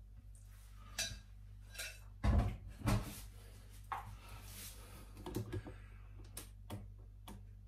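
Handling knocks and clicks as the camera is picked up and moved to a new position, with two dull thumps a little over two and about three seconds in as the loudest, then a few lighter taps.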